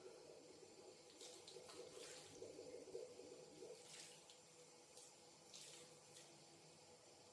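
Water running from a tap into a sink, faint and splashing unevenly in irregular surges.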